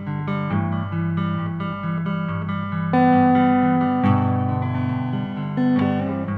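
Music: a plucked-string melody of held notes changing every half second or so, with a louder note coming in about three seconds in.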